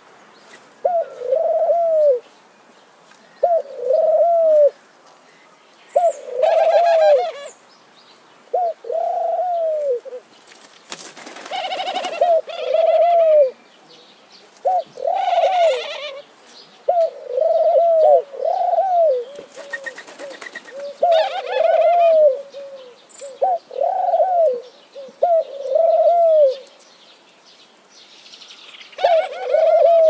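Doves cooing over and over: short, low coos, each rising and then falling in pitch, often in pairs, with pauses of a second or two between them.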